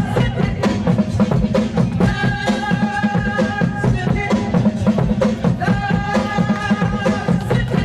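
Music with a steady, busy drum beat and a short melodic phrase repeating about every two seconds.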